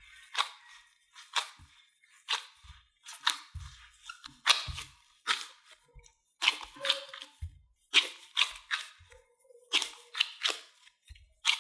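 Repeated crisp crunches, roughly one a second, some with a faint low knock beneath.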